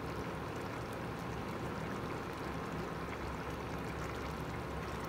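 A pan of beans in tomato sauce simmering on the hob, a steady bubbling.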